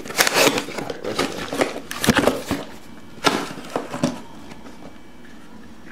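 Knocks, scrapes and rustling of objects being handled and moved about. The sharp knocks cluster in the first four seconds, with a heavy thump about two seconds in, and then it goes quieter.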